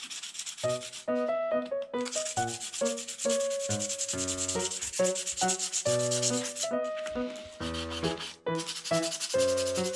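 Hand sanding of a cork rod grip with 400-grit sandpaper: a scratchy rasp that stops briefly now and then, taking down dried wood putty that stands proud of the cork. A background music melody of stepped notes plays along with it.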